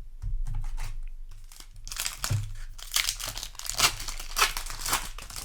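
Foil booster pack wrapper crinkling and tearing as it is handled and ripped open, a dense crackle with sharp snaps, loudest in the second half.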